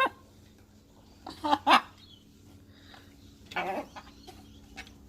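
Short voice-like sounds, two or three brief syllables about a second and a half in and another brief cluster a little past halfway, with a few faint clicks near the end.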